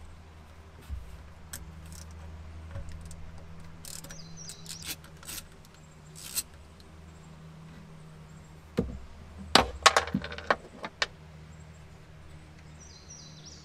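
Scattered metal clicks and clinks of a ratchet, socket and bolts as the oil injection pump on a Yamaha VXR 650 jet ski engine is unbolted, with a louder cluster of clinks about nine to eleven seconds in.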